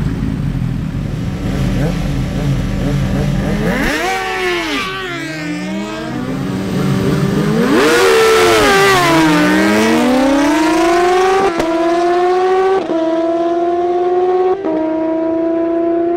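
A Suzuki GSX-R1000 and a supercharged Kawasaki ZH2, both inline-four sportbikes, idle at the start line and blip their throttles twice. They then launch and accelerate hard, the engine pitch climbing and dropping abruptly at three quick upshifts.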